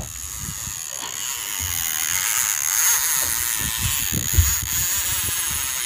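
Conventional lever-drag fishing reel's drag buzzing steadily as a hooked sturgeon runs and pulls line off the spool, with a few low thumps mixed in.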